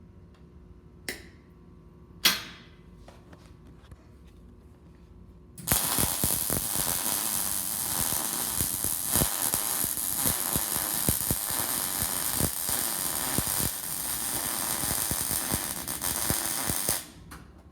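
Stick welding arc burning with a dense, steady crackle for about eleven seconds, starting suddenly about six seconds in and cutting off near the end. Two sharp clicks come earlier, in the first few seconds.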